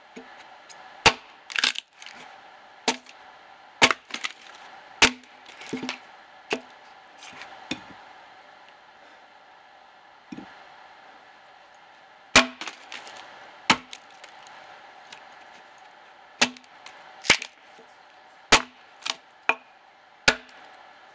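Axe blade biting into a dead ash log, sharp wooden chopping strikes at an uneven pace of about one a second, some coming in quick pairs, with a pause of a few seconds midway.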